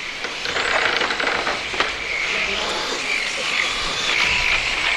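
Several radio-controlled electric touring cars racing: a high motor whine that rises and fades as the cars go past, with a sharp click about two seconds in.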